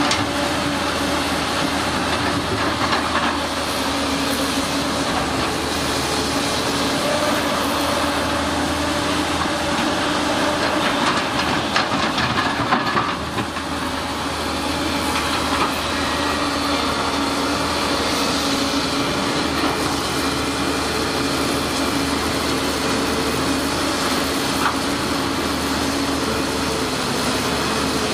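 Hydraulic excavator diesel engines running steadily while digging, with a short stretch of knocking and clatter about halfway through as the bucket works among stones.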